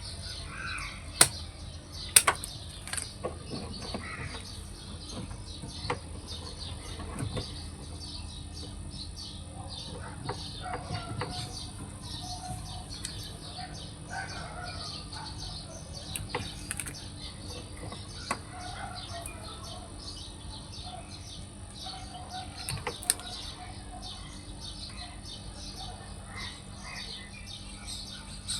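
Birds chirping throughout, over a steady high whine and low hum, with a few sharp knocks, the loudest about a second in, two seconds in and near the end.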